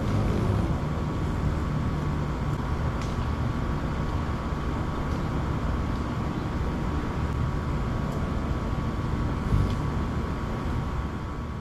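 Steady outdoor background rumble, with a faint constant high tone and a few faint ticks, and one brief louder bump about nine and a half seconds in.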